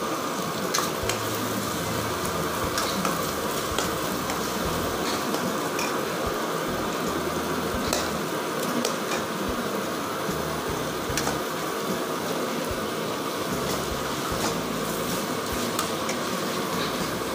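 Chicken, green capsicum and coriander stems sizzling steadily as they fry in a pan, stirred with a steel ladle that scrapes and taps lightly against the pan now and then.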